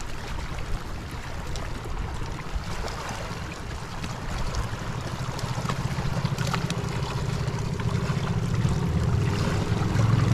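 A small boat's engine running, its low hum growing steadily louder toward the end, over a haze of water and wind noise.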